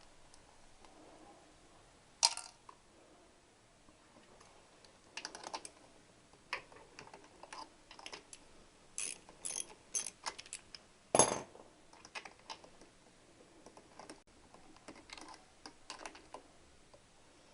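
Hand tools and small metal engine parts clicking and clinking in irregular taps. The loudest knocks come about 2 seconds in and about 11 seconds in, with a quick run of clicks just before the second.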